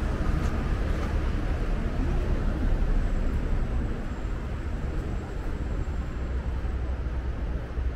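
Busy city street ambience: a steady low rumble of traffic and street noise, easing slightly about halfway through.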